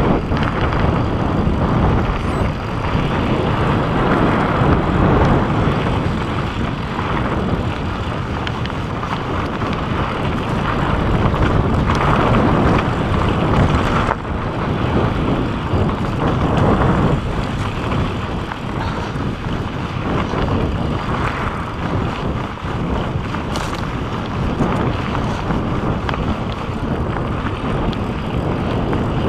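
Mountain bike descending a dirt and rock trail at speed: a steady rush of wind over the camera microphone mixed with the rumble and rattle of the tyres and bike over the rough ground.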